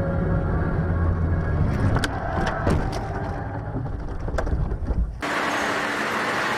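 Dashcam audio of a car driving, with a steady low engine and road rumble. About two seconds in comes a series of sharp knocks and bangs, the loudest near three seconds and one more about four and a half seconds in, as the car crashes. Just after five seconds the sound switches abruptly to a steady hiss with a low hum from the next clip.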